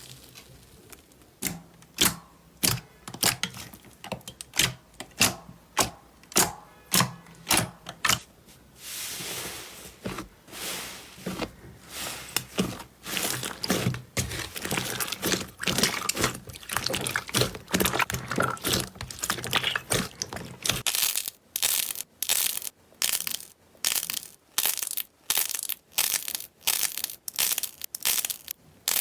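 Slime being pressed and squeezed, giving repeated crackling, crinkling pops about twice a second. In the middle the crackle runs denser and more continuous, and near the end it turns into sharper, evenly spaced pops with short quiet gaps between them.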